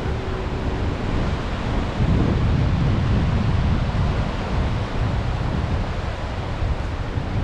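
Wind buffeting the microphone with a low rumble, over the wash of sea waves on the shore; a gust makes it louder about two seconds in.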